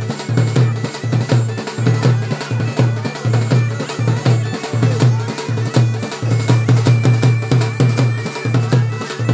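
Bagpipes (the Bhaderwahi been) playing a tune over their steady drone, with a dhol drum keeping a quick, steady beat beneath.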